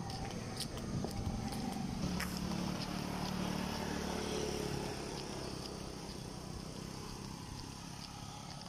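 A small motorcycle engine passing by, its hum growing over the first few seconds and fading toward the end, with light scattered footstep clicks.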